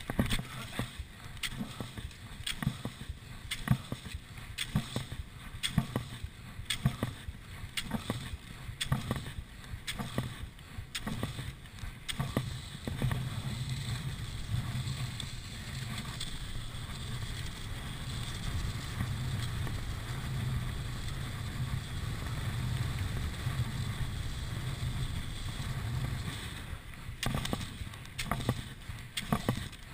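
Classic cross-country skiing in set tracks. Poles plant and skis stride with a sharp knock about once a second, then give way to a steady noise of the skis gliding in the tracks during a downhill tuck. Poling resumes near the end.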